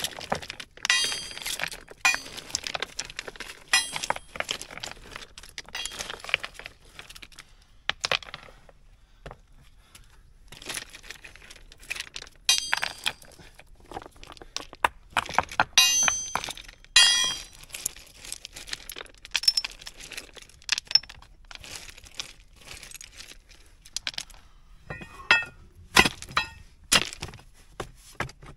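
Loose stones being pulled and shifted by hand in a rubble pile: stones clinking and knocking against each other, with gravel scraping, in irregular clusters. A few sharper knocks come near the end.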